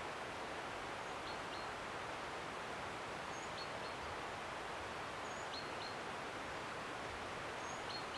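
Woodland ambience: a steady, even rushing hiss, with a small bird giving short high calls, paired notes about every two seconds.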